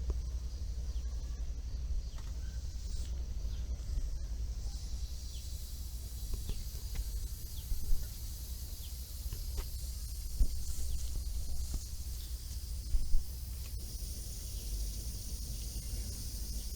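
Air hissing out of a scooter's punctured front tubeless tyre around a small nail, the hiss getting louder about five seconds in. Underneath there is a steady low rumble and a few light knocks.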